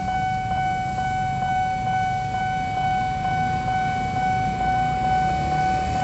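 Railway level-crossing warning alarm sounding a steady electronic tone with a faint tick about twice a second, signalling that the crossing is active for an approaching train. Motorcycle engines run underneath.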